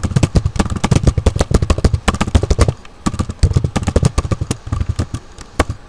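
Typing on a computer keyboard: rapid keystrokes in quick runs, with brief pauses a little before halfway and near the end.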